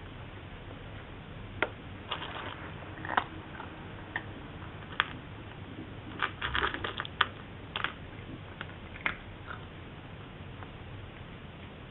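A cat eating dry kibble: irregular short crunches and clicks, coming thickest in a quick cluster a little past halfway.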